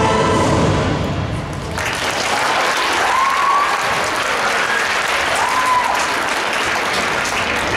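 Accompaniment music ends about a second and a half in, and audience applause follows, with a couple of short high calls rising and falling over it.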